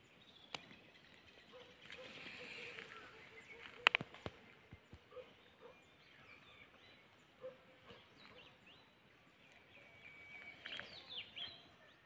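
Faint forest ambience with birds chirping and calling, a cluster of short high chirps near the end. Two sharp clicks stand out, about half a second and four seconds in.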